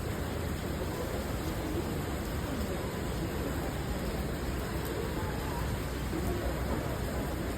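Steady hiss of falling rain mixed with city street noise, with faint distant voices.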